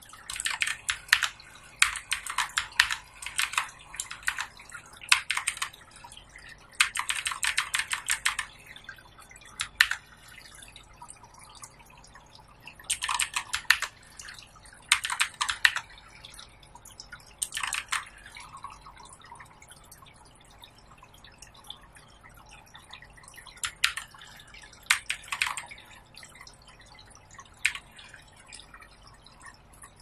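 Clicky blue-switch keys of an HP GK100 mechanical keyboard being pressed in quick runs of clicks, with short pauses between the runs.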